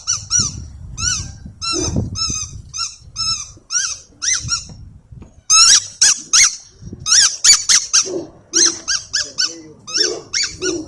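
Squeaky dog toy sounding in rapid, high-pitched chirps, several a second, with a short break about five seconds in and louder chirps after it.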